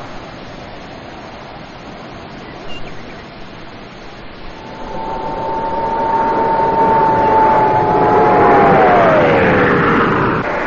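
An aircraft flies past: its noise builds for several seconds and peaks, and its tone drops steeply in pitch as it goes by. Before it arrives there is a steady hiss.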